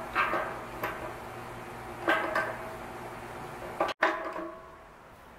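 About four sharp metallic clanks, each with a short ring, from a pipe wrench knocking against the steel air compressor tank and its plug fitting while the plug is being worked loose.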